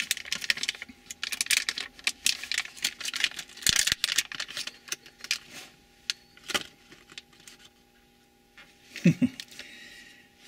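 Plastic anti-static bag crinkling and rustling as it is handled, thick and busy for the first few seconds, then only a few scattered crackles. A brief low sound about nine seconds in is the loudest moment.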